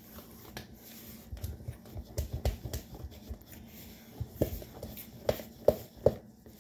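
Pancake batter being stirred in a plastic mixing bowl: irregular soft scrapes and knocks of the utensil against the bowl, with a few sharper clacks in the second half.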